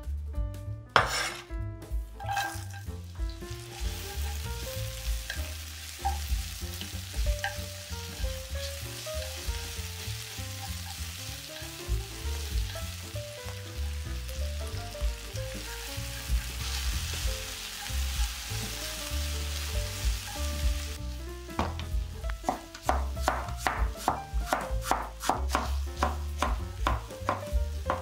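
Sliced onion and chopped garlic sizzling in oil in a frying pan, steady and hissing. About three-quarters of the way through, a cleaver starts chopping cabbage on a wooden cutting board in quick regular strokes. Soft background music plays under both.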